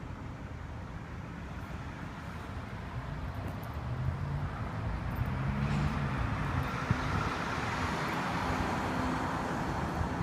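A motor vehicle's engine running close by, growing louder from about four seconds in, over a steady wash of road traffic noise.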